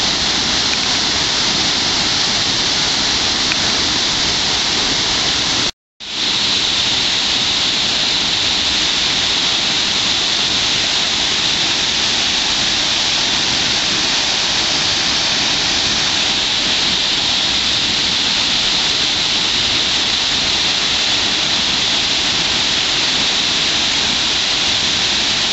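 Waterfall rushing: a loud, steady roar of falling water. It cuts out completely for a split second about six seconds in.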